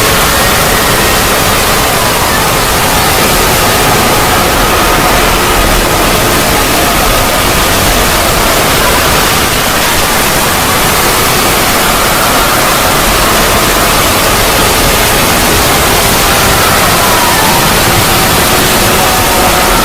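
Synthetic 'void' ambience sound effect: a loud, steady wash of hiss-like noise with faint wavering tones drifting underneath it.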